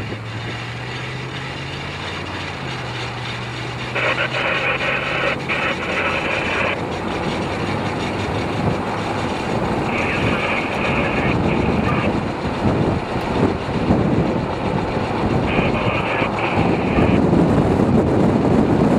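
A vehicle driving on a dirt road: steady engine hum and road rumble that grow louder near the end. Three times, a higher-pitched sound of one to three seconds rises above the road noise.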